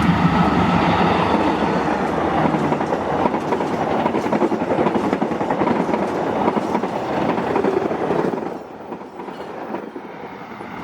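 Indonesian express passenger train running through the station at speed, its wheels clattering over the rail joints as the coaches go by. The sound drops off sharply about eight seconds in as the end of the train passes.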